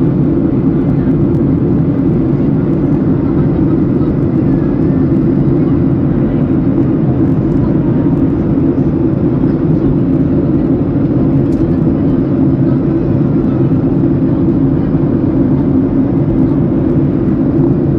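Steady low cabin noise of an airliner in cruise flight: an even rumble of engines and rushing air that stays the same throughout.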